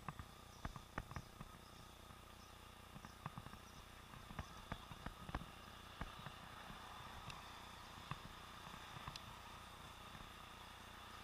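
Faint, muffled recording from a helmet-mounted camera sealed in an underwater housing: a steady hiss with scattered sharp clicks and knocks, most of them in the first half, as the housing is jostled on the moving bicycle.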